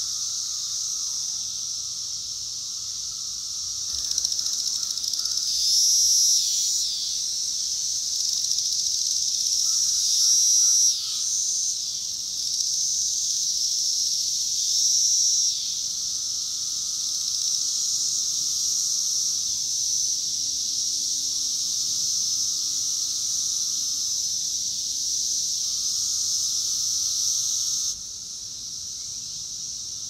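Chorus of 17-year periodical cicadas, a dense, steady, high-pitched hiss from many singing insects. Nearer calls swell louder several times in the first half, and lower buzzing calls a few seconds long repeat through the second half. The level drops suddenly near the end.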